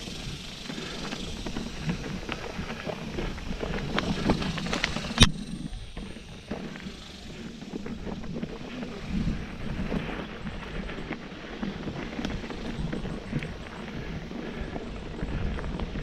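Mountain bike rolling over a dirt trail: tyres on dirt and the bike rattling over bumps, with many small clicks and wind on the microphone. One sharp knock about five seconds in.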